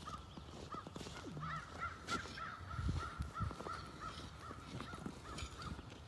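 A bird calling in a rapid series of short, even notes at one pitch, from about a second and a half in until near the end, with a few low thuds around the middle.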